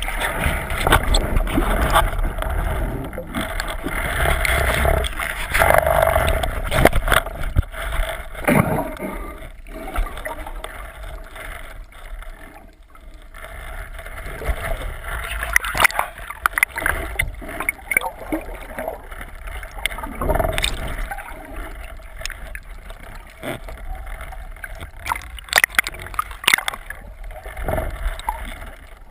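Muffled water noise picked up by a camera in an underwater housing mounted on a speargun: a steady low wash and gurgling as it moves through the water just below the surface, with scattered sharp knocks and clicks, several in the second half.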